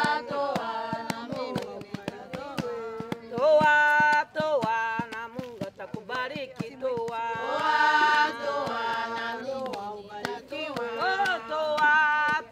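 Congregation singing a Swahili hymn together, with sharp taps keeping a beat under the voices.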